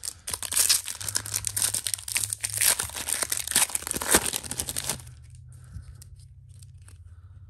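Gold foil wrapper of a 1994-95 NBA Jam Session trading-card pack crinkling and tearing as it is ripped open by hand, for about five seconds. After that come fainter rustles as the cards are slid out and handled.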